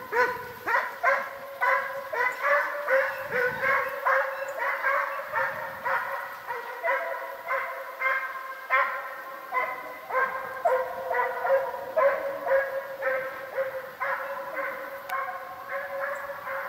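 Russian hounds giving tongue on a hare's trail: a rapid run of yelping barks, about two a second, with more than one voice overlapping. This is the chase cry (gon) that hunters listen to as the pack drives the hare. It grows slightly fainter in the last few seconds.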